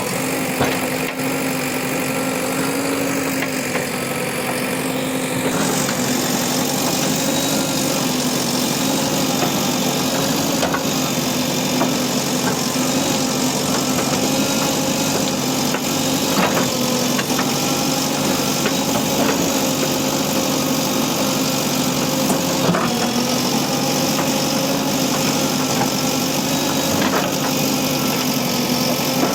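JCB backhoe loader's diesel engine running at a steady pitch, with a few short sharp knocks now and then.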